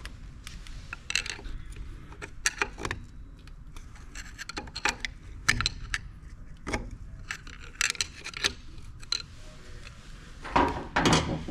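Metal clicks and clinks of pliers working at an axle's C-clip inside a differential carrier, an irregular scatter of sharp taps with a louder clattering cluster near the end as the stuck clip is worked loose.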